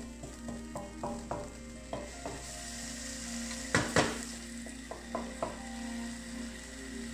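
Tomatoes and green vegetables sizzling in a wok as a wooden spatula stirs them, knocking against the pan a dozen or so times with a short ring after each. The two loudest knocks come about halfway through.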